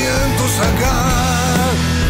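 Rock music from a drums, bass, and guitar-and-vocals trio, with a wavering lead melody over a steady low bass line.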